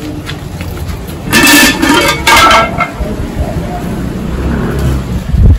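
A spoon scraping food out of a bowl into a cooking pot: two loud scrapes about a second and a half and two and a half seconds in, over a steady low rumble, with a low thump near the end.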